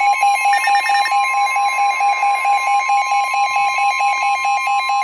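NOAA Weather Radio 1050 Hz warning alarm tone, one long steady tone signalling that a new warning is about to be read, sounding together with a rapid electronic beeping of about five beeps a second. The steady tone stops near the end while the beeping carries on.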